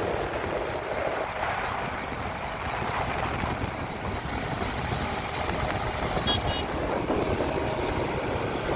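Heavy diesel machinery running steadily, with a brief high-pitched squeal about six seconds in.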